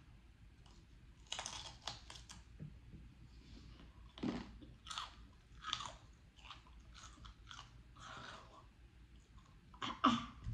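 Mouth sounds of a person biting into and chewing a raw jalapeño pepper stuffed with cream cheese and topped with crushed Takis rolled tortilla chips: irregular wet crunches, a few louder near the end.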